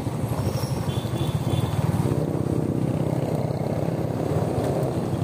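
Suzuki motorcycle engine running steadily at low road speed, heard from the saddle: a low hum with a rapid even pulsing.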